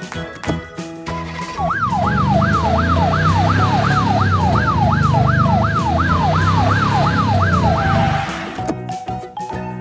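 Electronic siren in a fast yelp, its pitch sweeping up and down about two and a half times a second over a low rumble; it starts about two seconds in and stops about eight seconds in.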